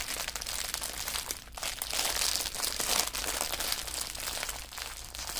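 Small plastic bags of diamond painting drills and the kit's plastic packaging crinkling and rustling as they are handled, in an irregular run of crackles.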